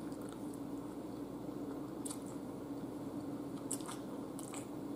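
Wet mouth sounds of someone eating spaghetti up close: chewing and slurping noodles, with a few short sharp smacks about two seconds in and near the end, over a steady low hum.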